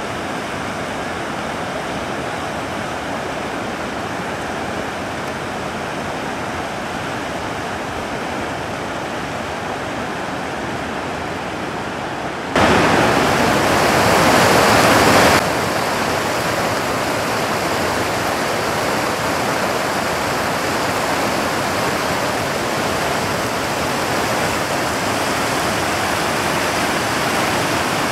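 Rain-swollen creek rushing over rocks in rapids, a steady roar of water. It swells louder for about three seconds near the middle, then settles a little louder than at the start.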